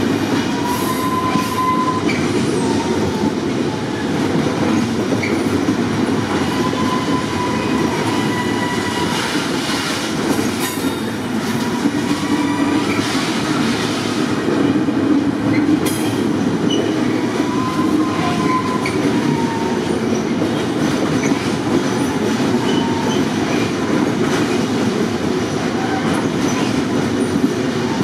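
Freight train of pocket wagons carrying semi-trailers rolling steadily past: a continuous rumble of wheels on rail, with brief faint wheel squeals a few times and occasional clacks over rail joints.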